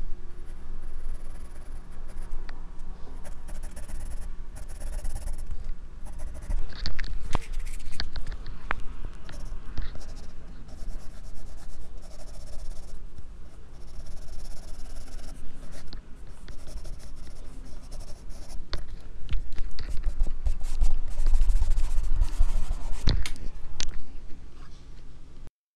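Pencil scratching and shading on drawing paper, picked up close by a clip-on microphone worn at the drawing wrist, with a low rumble from the mic rubbing and a few sharp taps. It cuts off just before the end.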